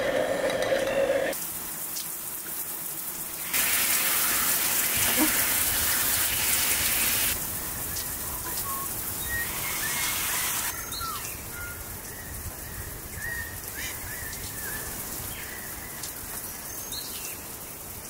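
Stick blender whirring in a glass jar of aloe vera and water, cutting off after about a second. Then a steady hiss of falling water from an outdoor shower, loudest for a few seconds, thinning out later while birds chirp now and then.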